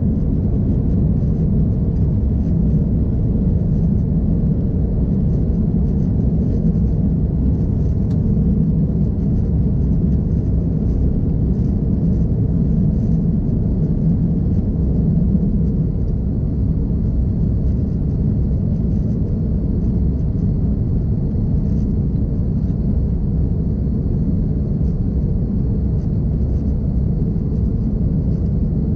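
Steady low rumble of an Airbus A330-200's engines and slipstream, heard inside the passenger cabin during the climb after takeoff; it eases slightly about halfway through.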